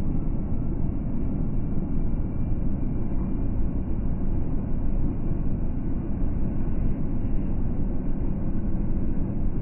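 Steady low rumble of a semi truck's engine and tyres at about 50 mph, heard inside the cab, with no sudden sounds.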